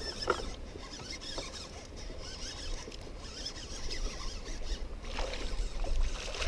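A hooked smallmouth bass being reeled in from a kayak: a fishing reel being cranked, with a few light clicks over a low wind rumble.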